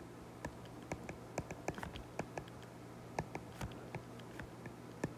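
Faint, irregular clicks and taps of a stylus writing on a tablet screen, over a steady low hum.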